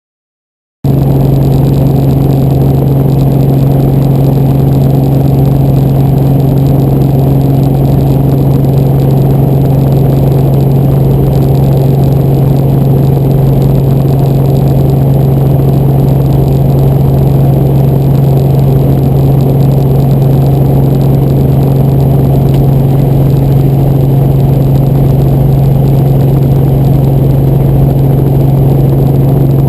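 Helicopter running with a loud, steady low drone and hum, cutting in abruptly about a second in.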